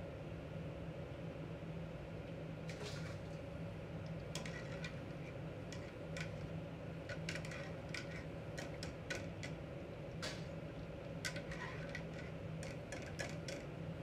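Kitchen clatter: irregular clinks and knocks of utensils against pots and dishes, starting about three seconds in, over a steady low hum.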